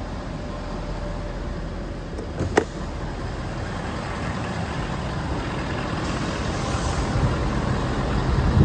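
Ford Power Stroke 6.7-litre V8 turbo-diesel idling steadily, with a single sharp click about two and a half seconds in.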